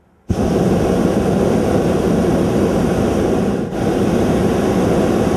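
A hot air balloon's propane burner firing in one long burn. It is a loud, steady blast that starts abruptly just after the start, with a brief dip partway through.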